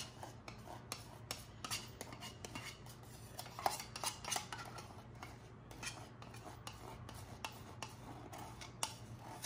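Light clinks and scrapes of kitchen utensils and dishes being handled: an irregular string of small sharp ticks, a few each second, over a faint steady low hum.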